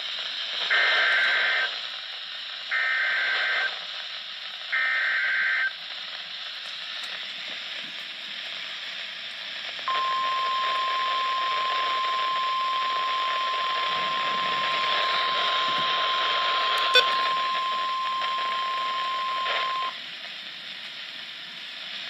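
NOAA Weather Radio Emergency Alert System signal played through a handheld weather radio's speaker over steady static hiss: three one-second bursts of warbling SAME data header, then the long 1050 Hz warning alarm tone held for about ten seconds, announcing a Severe Thunderstorm Warning. A single sharp click sounds partway through the tone.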